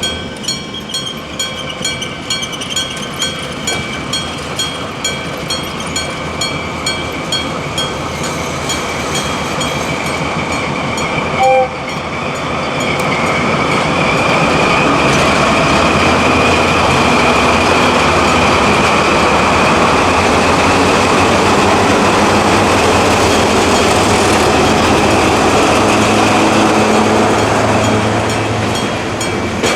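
Electric-bell level crossing ringing with a steady stroke about twice a second. About eleven seconds in there is a short horn blast, and then two ND55 diesel locomotives and their loaded limestone hopper wagons pass close by, with loud, steady engine and wheel noise that drowns out the bell.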